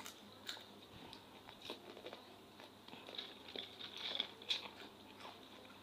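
Faint eating sounds: instant noodles being slurped and chewed, with scattered small clicks and rustles.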